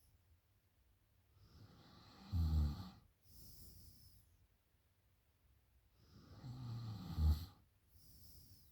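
A sleeping woman snoring after drinking: two snoring breaths about five seconds apart. Each is a low snore that swells and is loudest just before it stops, followed by a short breathy hiss.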